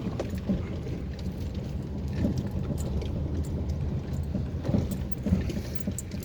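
A car driving slowly over a potholed, broken road: a steady low engine and road rumble, with several irregular knocks and jolts from the suspension over the holes.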